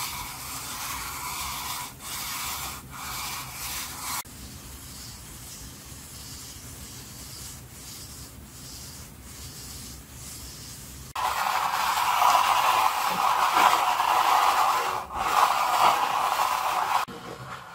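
Logitech M705 computer mouse slid back and forth across a desk surface. On its stock feet it scrapes loudly, with short breaks where the stroke reverses. With self-adhesive PTFE furniture-glide pads stuck on, it glides much more quietly. The pattern runs loud scrape, then quiet glide, then loud scrape again on a wooden desktop, and turns quiet again near the end.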